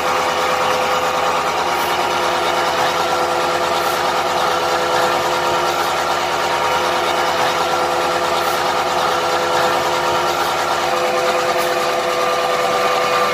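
Concrete mixer running steadily, its motor and turning drum giving a constant mechanical hum.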